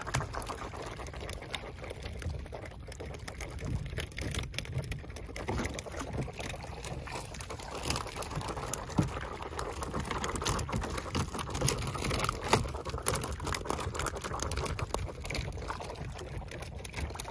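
Seawater splashing and pouring off a long-handled mesh dip net as it is scooped through the sea and lifted out, with scattered small clicks and knocks.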